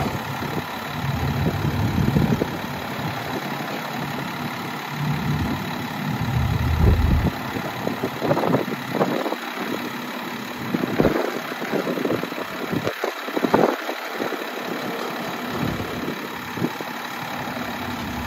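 International DT466E diesel engine of a 2000 International 4900 dump truck idling while the raised dump bed is lowered. Several short, louder sounds come through around the middle.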